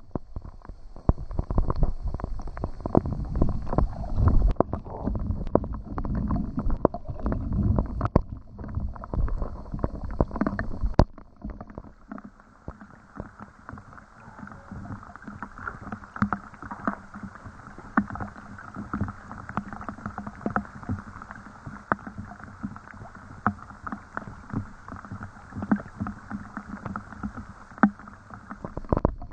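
Rain falling in a dense, irregular patter of drops. For the first ten seconds or so the patter is louder and deeper, then it changes abruptly to a quieter, lighter patter.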